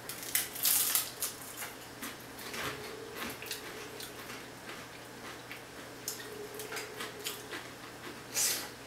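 People biting into and chewing crisp matzo crackers: irregular crunches and crackles, loudest about a second in and again near the end.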